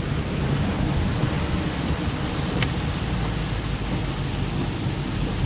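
Heavy rain falling steadily during a thunderstorm, with a low rumble underneath and one sharp tick about halfway through.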